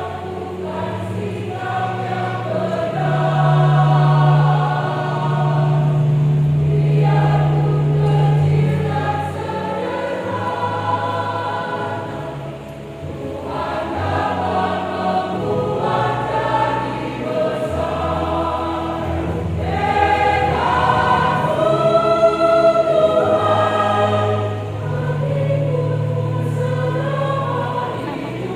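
Church choir singing a hymn in parts, with keyboard accompaniment holding long low notes beneath the voices.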